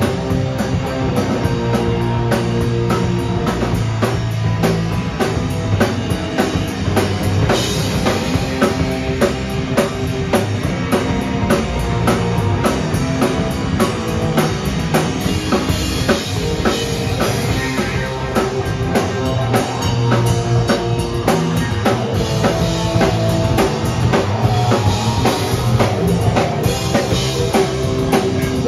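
Loud live heavy rock band playing: a drum kit with dense, steady hits and kick drum under electric bass and electric guitar.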